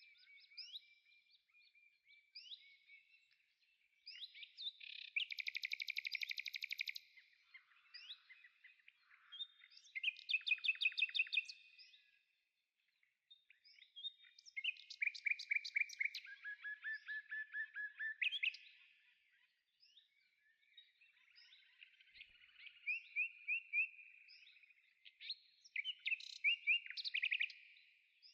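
A songbird singing a varied song of rapid trills and chirps, delivered in phrases of a few seconds with short pauses between them.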